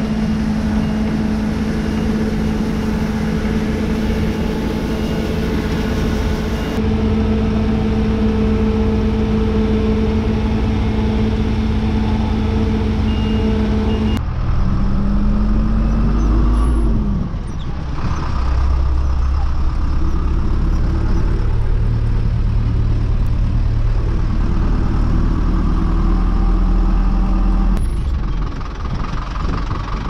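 Farm machinery engines running steadily. The sound changes abruptly about halfway through, and just after that an engine tone drops in pitch before a deeper running sound takes over. There is another sudden change near the end.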